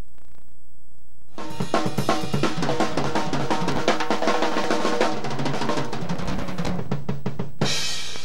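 Drum-heavy music: a drum kit with bass drum, snare and cymbals over pitched instruments, starting about a second and a half in, with a short bright hit near the end.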